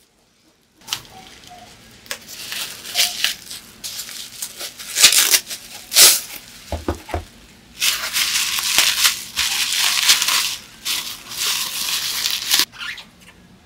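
Plastic bubble wrap being pulled off a box and crumpled by hand: irregular crinkling and crackling, with a few low thumps about seven seconds in, then a stretch of dense crumpling that cuts off suddenly near the end.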